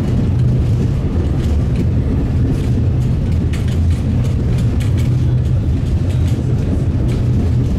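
Tram running along a street track, heard from inside at the front: a steady low rumble of the running gear, with a few light clicks around the middle and near the end.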